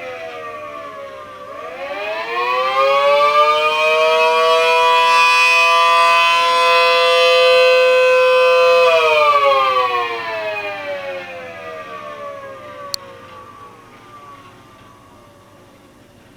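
Homemade 3D-printed mini ACA P10 tornado siren with a 12/9-port chopper sounding a two-tone chord. Its falling pitch winds up again early on, holds the chord steady for several seconds, then winds down and fades as the rotor slows. A single sharp click comes near the end.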